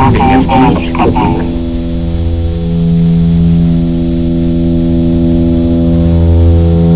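A loud, low electronic hum made of several steady tones, swelling slowly in level. In the first second or so a brief warbling, voice-like sound passes over it.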